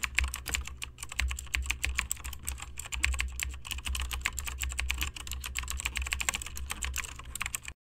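Rapid keyboard typing: a fast, irregular stream of key clicks over a low hum, stopping abruptly near the end.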